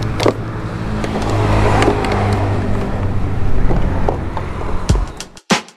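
An engine running steadily, swelling a little and then fading after about four seconds. A few sharp hits come near the end.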